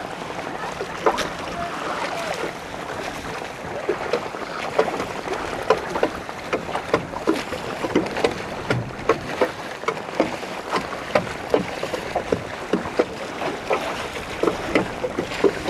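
Small waves slapping and splashing irregularly against the hull of a small boat, over a steady rush of wind and water.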